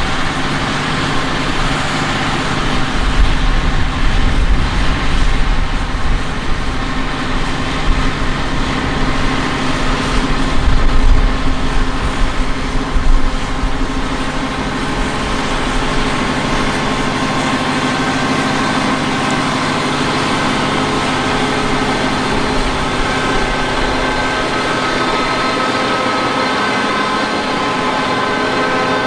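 John Deere 6215R tractor's six-cylinder diesel engine running under load while it pulls a power harrow and seed drill through loamy soil. The drone is steady, with a heavy low rumble that surges through the first half and evens out later, when faint higher whining tones come in.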